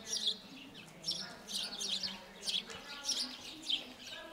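Small birds chirping repeatedly, short high chirps coming several times a second at an uneven pace.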